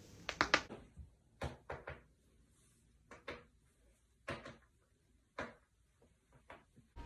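Neck joints cracking under chiropractic adjustments: a string of sharp pops, some in quick runs of two or three, with short quiet gaps between.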